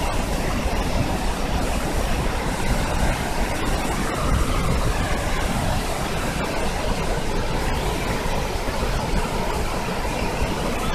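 A large waterfall in heavy flow: a loud, steady, unbroken rush of falling water, deep at the bottom end.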